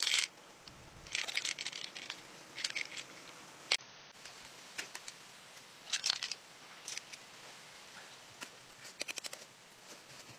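Pearls clicking and rattling against each other and the shell as they are handled, then a knife clicking and scraping on the edge of a freshwater mussel shell as it is pried open, with a quick run of clicks near the end.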